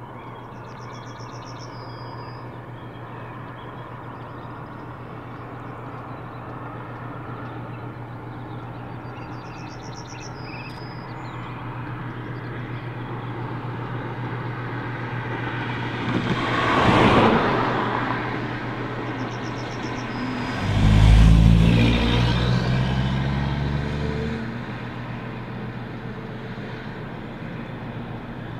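An approaching locomotive gives a steady low drone that grows slowly louder. Partway through, two louder swells pass, the second with a deep engine note lasting a few seconds. A bird chirps briefly now and then.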